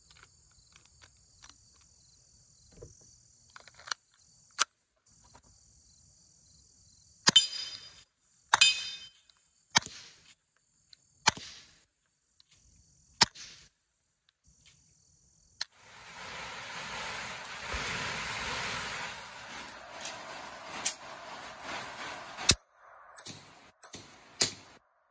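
Suppressed pistol firing single shots: five sharp shots a second or two apart, then a few softer clicks of handling. After a cut, several more shots over the steady patter of rain on a metal roof.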